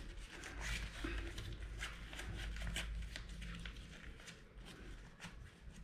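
Banana leaf crinkling and rustling as hands fold it into a parcel, a run of faint soft crackles.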